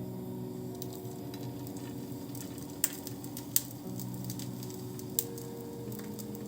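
Soft background music with held notes that change a few times, over a steady hiss, with three sharp clicks in the middle.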